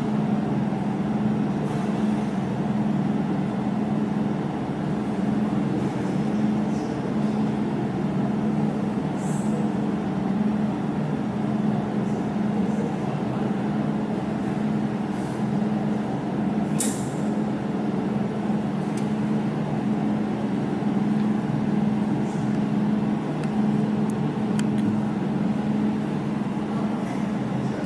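Jewelry laser welding machine running with a steady, even hum. A few short sharp clicks come through it, the loudest about two-thirds of the way in.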